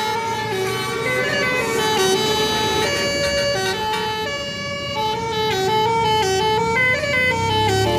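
Basuri musical horn on a tour bus playing a tune of held notes that step up and down, several notes sounding together. A low bus engine rumble sits underneath and grows louder near the end.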